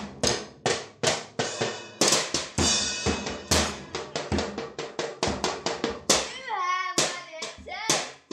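Live rock band playing, led by a drum kit: a run of sharp drum hits with cymbal crashes, and a wavering, sliding pitched note about six seconds in.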